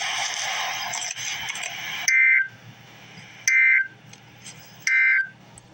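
About two seconds of loud hiss, then three short buzzy data bursts about 1.4 s apart: the Emergency Alert System's end-of-message codes, which mark the close of the alert.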